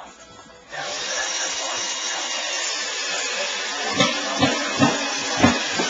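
A power tool starts up and runs steadily, with four sharp knocks in the second half.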